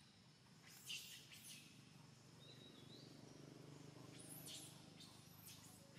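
Faint bird chirps over a quiet outdoor background, with a few short calls about a second in and again past four seconds.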